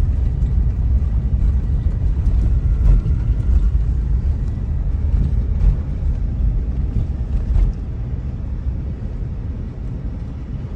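Road noise and engine rumble inside a moving car, with a few faint knocks from the rough road, easing slightly about two-thirds of the way in.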